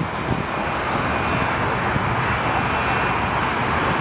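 Jet airliner engines running: a steady rush of noise with a faint high whine over it.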